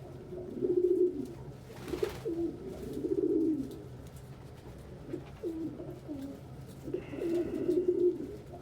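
Domestic pigeons cooing in several low, wavering phrases with short gaps between them, and a brief rustle about two seconds in.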